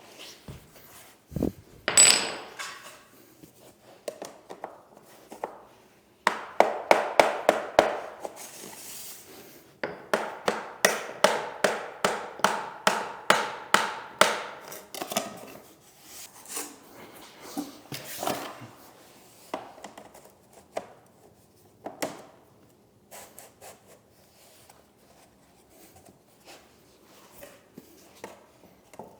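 Vinyl click-lock planks being knocked into place with a tapping block: a fast run of sharp taps about six seconds in, then a steady series of about two taps a second, with scattered knocks and plank handling after.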